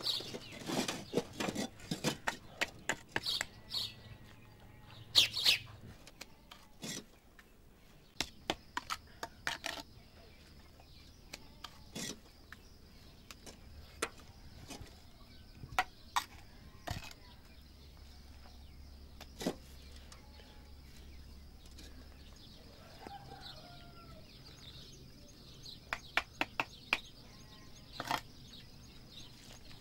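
Scattered sharp taps and knocks of a trowel and hollow clay bricks as a mud-and-brick stove dome is built up, busiest at the start and again near the end. Birds chirp in the background.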